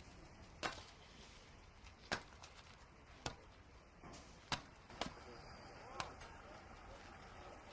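Hand tools knocking on the road surface: six short, sharp knocks at uneven intervals of about a second, fairly faint.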